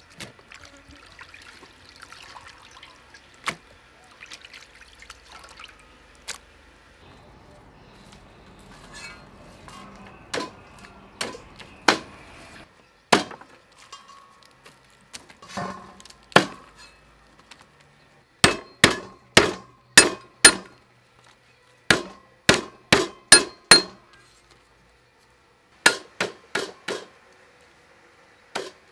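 A cleaver chopping lemongrass on a round wooden chopping block: sharp knocks, a few spaced ones and then quick runs of about three a second in the second half. Before that, water trickles into a plastic colander.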